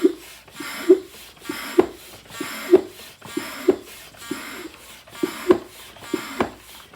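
Manual vacuum oil-extractor canister being hand-pumped in steady strokes, about one a second, each with a rush of air and a sharp knock, building vacuum to suck the engine oil out.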